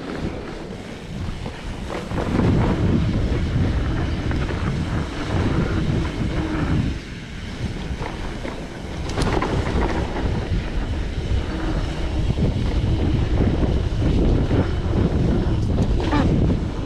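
Wind buffeting the camera microphone, with the rumble of a mountain bike riding on a trail. There are a few sharp knocks, one about nine seconds in and one near the end.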